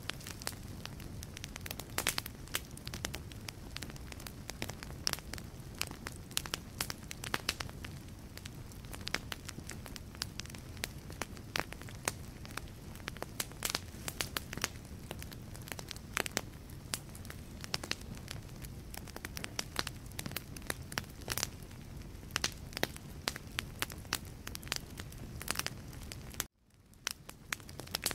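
Wood fire burning in a fireplace, crackling with frequent sharp pops of varying loudness over a steady low rumble of flames. Near the end the sound cuts out abruptly for a moment, then fades back in.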